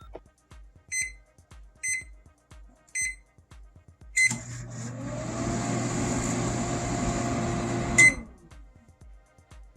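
GE Dual Wave II microwave oven: three keypad beeps about a second apart, then a click as it starts heating. It runs with a steady hum and fan noise for about four seconds, a motor tone rising as it spins up, and stops with a sharp click.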